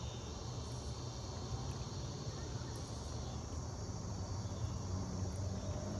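Steady chorus of insects chirring high over a low steady hum.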